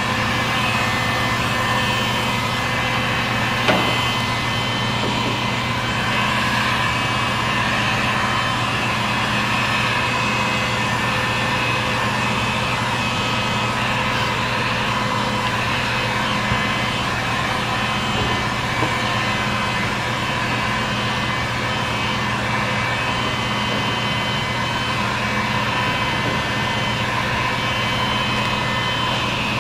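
Handheld heat gun running steadily, its fan motor giving a constant hum while it heats vinyl wrap film. A light knock about four seconds in.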